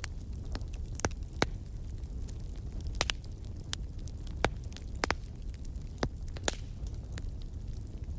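Bonfire burning strongly: a steady low rumble of the flames with sharp, irregular pops and crackles from the burning wood.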